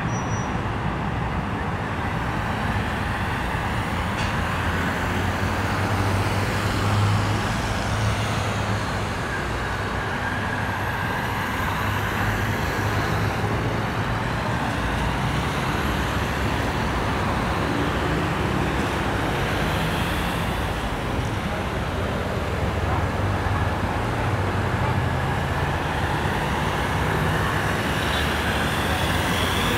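Steady city traffic: a continuous wash of road noise from cars and other vehicles, with a low engine hum underneath.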